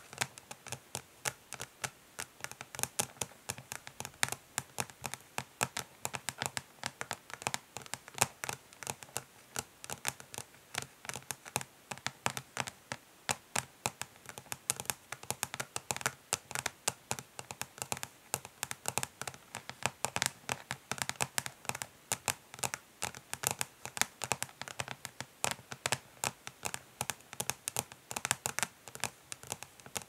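Long natural fingernails tapping fast but gently on the hard plastic lid of an eyeshadow palette: quick, uneven clicks, several a second, without pause.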